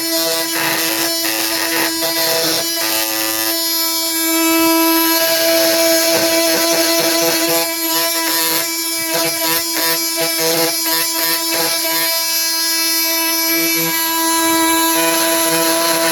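Flex FX4111 cordless oscillating multi-tool running steadily under load, its blade buzzing at a fixed pitch with a rough rasping as it cuts into a lag screw and the wood around it.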